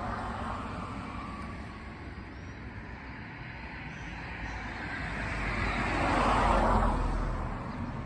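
Traffic noise, with a car passing by: it grows louder to a peak about six seconds in, then fades away.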